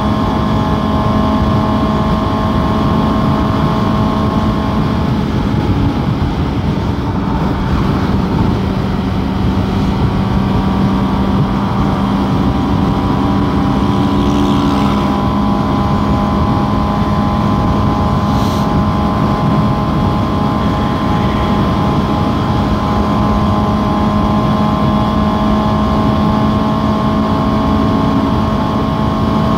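Suzuki GSX-S750 inline-four motorcycle engine running steadily at cruising speed, with heavy wind noise on the helmet microphone.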